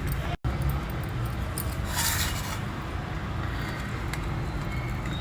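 A knife cutting a soft steamed dhokla into pieces, with light scrapes of the blade against the pan, most noticeable about two seconds in, over a steady low hum.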